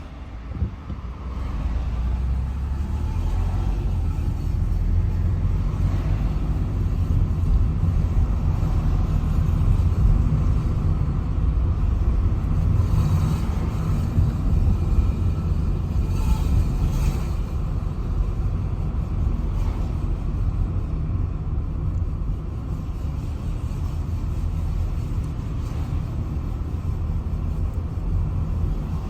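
Car driving forward with a loud, continuous metallic scraping from a wheel brake over the rumble of the road, heard from inside the car with the windows open. The scraping comes from a stone about 1 cm across caught in the brake.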